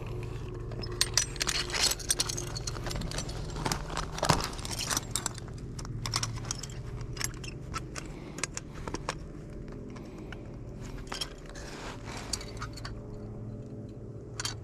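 Steel foothold trap and its chain clinking and rattling as it is handled and set by gloved hands, with many scattered metallic clicks and knocks.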